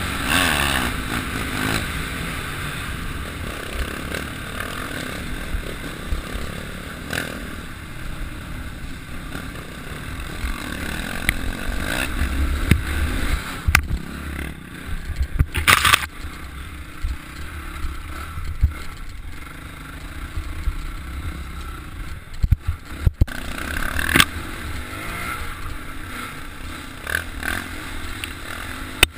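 Dirt bike engine running and revving on a rough earth trail, heard from the rider's helmet, with clattering knocks from the bike over bumps and a sharp scraping burst about 16 seconds in.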